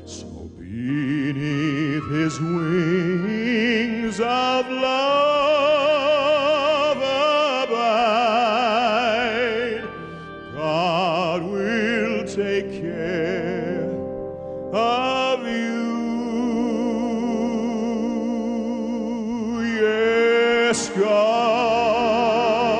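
Solo singing in an operatic, classical style: long held notes with a strong, wide vibrato over instrumental accompaniment, with brief breaths between phrases.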